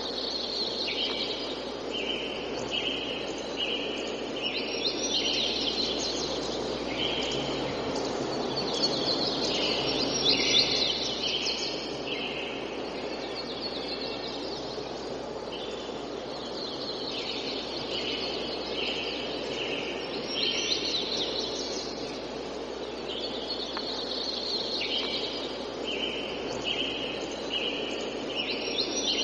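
Tropical forest birds singing: one bird repeats a run of five or six short, evenly spaced notes several times, while other birds chatter higher up, over a steady background hiss of forest ambience.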